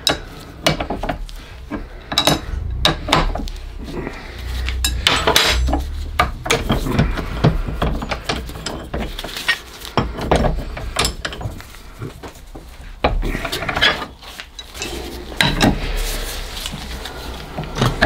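Irregular metal clinks, taps and scrapes as the loosened cap of a cast steam-boiler clack valve is unscrewed by hand in a vise and a steel adjustable spanner is handled against the fittings.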